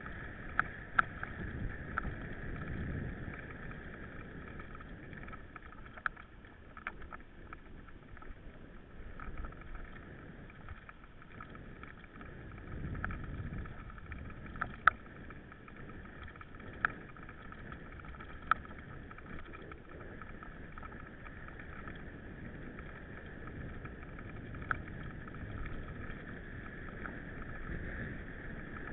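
Riding noise of a mountain bike: a steady rattling hiss from the tyres and drivetrain, broken by sharp clicks and knocks every second or two, with wind rumbling on the microphone at times.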